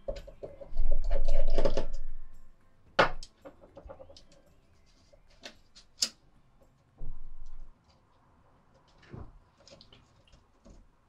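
Hands working on a Nikon F100 camera body with a small screwdriver: rustling handling noise at first, then a few sharp clicks and light knocks of tool and camera parts on the tabletop.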